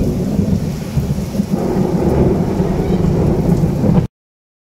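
A long, low rumble of thunder over heavy rain, growing louder, then cut off suddenly near the end.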